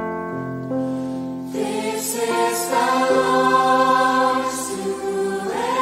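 Gospel music: sustained instrumental chords, joined about a second and a half in by a choir singing.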